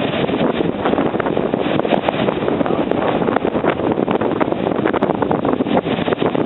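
Storm-force wind buffeting the microphone: a loud, steady rush of noise with constant quick crackles and thumps.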